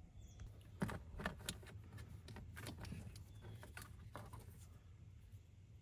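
Faint scattered clicks and light knocks of hands working a plastic switch and its wiring out of a dashboard switch panel, over a low steady hum.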